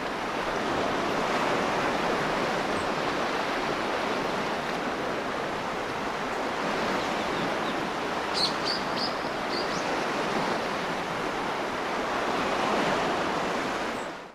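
Ocean surf sound effect: a steady wash of waves swelling and easing slowly, with a few short, faint high chirps about eight seconds in.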